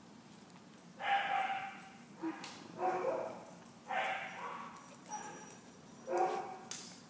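A dog giving about five short yipping barks, starting about a second in.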